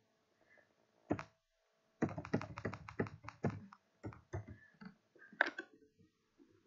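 Typing on a computer keyboard: one keystroke about a second in, then a quick run of keystrokes entering a phone number, thinning to scattered taps.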